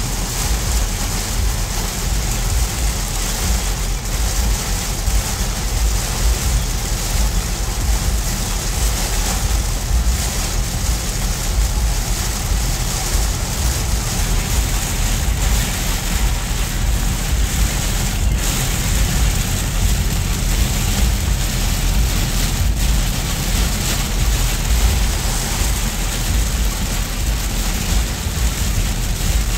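Heavy rain hitting a car's roof and windshield, heard from inside the cabin, over a steady hiss and rumble of tyres on a flooded highway.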